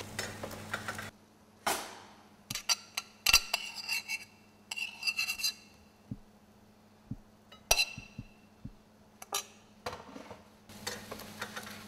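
Food being plated: a metal serving utensil clinking and scraping against a metal pan and a ceramic plate in a scatter of sharp clinks, some ringing briefly.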